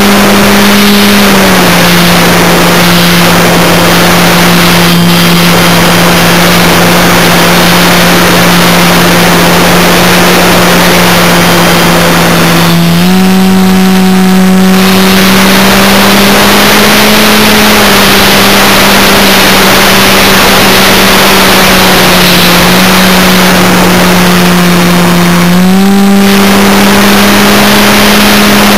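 A radio-controlled model aircraft's motor and propeller, heard very close from an onboard camera: a loud, steady hum whose pitch steps down and back up several times as the throttle is moved, over a constant rush of air noise.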